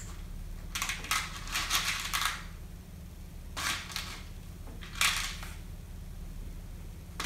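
Small hard slime add-ins rattling as they are shaken and poured from a container into a bowl, in three bursts of clatter.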